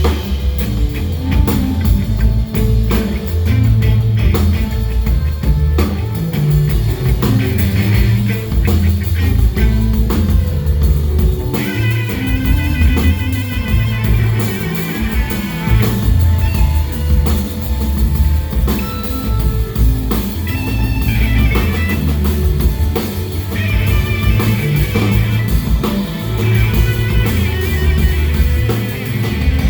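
Live band playing an instrumental passage, with drum kit and a steady bass line. A high, wavering melody line comes in about twelve seconds in and returns later.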